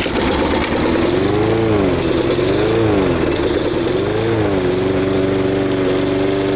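Lawn mower engine running, its pitch rising and falling three times before settling to a steady speed about two-thirds of the way in.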